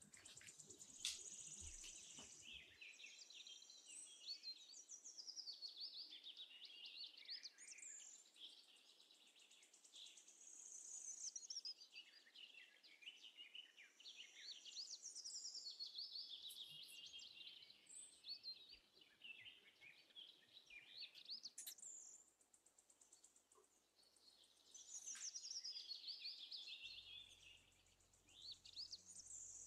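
Faint birdsong: many small birds chirping and twittering in a busy stream of quick high trills and sliding notes, swelling and easing off in waves.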